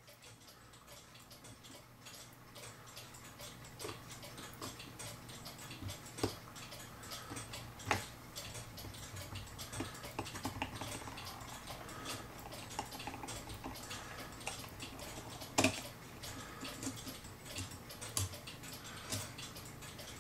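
Light metallic clicking and ticking from a French clock movement as its mainspring is let down with a key, the click held off the ratchet with a screwdriver. A few sharper clicks stand out about 4, 6, 8 and 15 seconds in.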